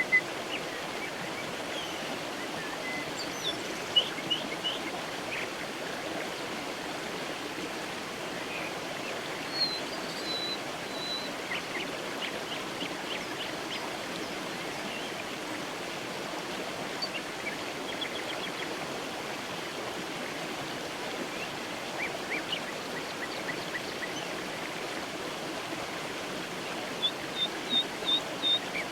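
Creek water flowing steadily, with small birds chirping now and then over it and a run of quick, high repeated notes near the end.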